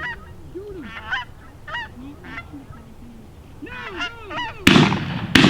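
Geese honking over and over as a flock comes in. Near the end, two loud shotgun blasts break out less than a second apart.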